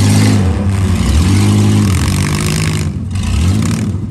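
Demolition derby car engine revving in repeated swells, its pitch rising and falling about four times, loud and unmuffled-sounding over a steady idle rumble.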